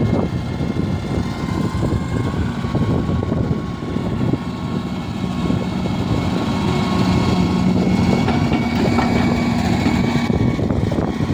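Excavator's diesel engine running under load with a steady whine, rising a little in pitch and loudness about seven seconds in.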